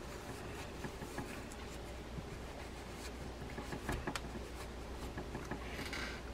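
A cloth rubbing over a small metal fishing-reel gear as it is wiped clean, with faint light clicks of the part being handled. The rubbing gets louder near the end as the cloth passes close.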